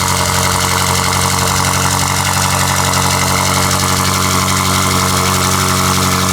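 2020 BMW M8 Competition's twin-turbo V8 idling steadily on its first cold start through a straight-piped exhaust with downpipes, its exhaust flaps still closed.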